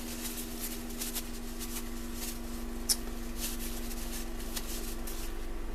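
Light clicks and rustling from small metal ratchet parts being handled, with one sharper click about three seconds in, over a steady low hum.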